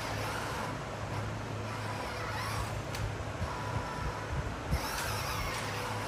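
Electric motor and gearbox of a radio-controlled scale truck whining up and down in pitch several times as it drives, with a few light knocks in the second half.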